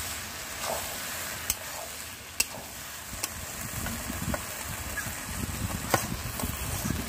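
A spatula stirring thick kalmi sag (water spinach) with fish heads in a sizzling pan, with a steady hiss and a few sharp clicks of the spatula against the pan.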